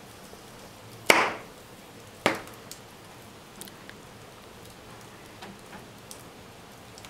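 Wood fire crackling in an open fireplace, with scattered small pops. Two loud sharp cracks come about a second apart, the first about a second in.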